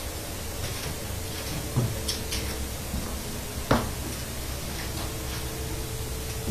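Steady background noise with a faint hum, broken by a few short knocks and clicks, the loudest a little past halfway through.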